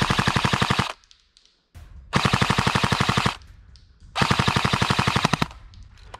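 Airsoft rifle firing three bursts of rapid full-auto fire, each well over a second long. The first burst is already going and stops about a second in; the others follow with short pauses between them.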